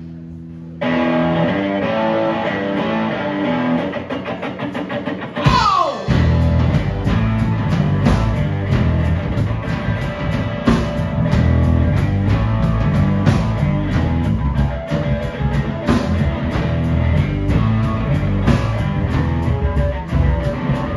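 Live blues-rock band. An electric guitar riff starts about a second in. A long falling swoop comes at about five and a half seconds, and then bass guitar and a drum kit join with a steady beat.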